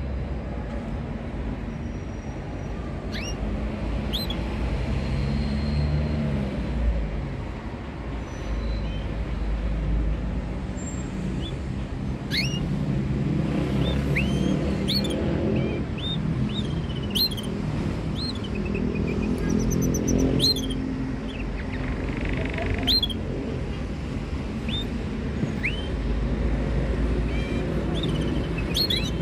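Scattered short chirps from canaries, quick single call notes about a dozen times, over a steady low background rumble like distant traffic.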